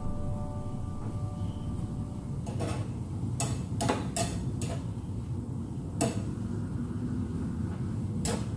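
Metal kitchen utensils clinking against cookware: about seven sharp, irregular clinks spread over the few seconds, over a steady low hum.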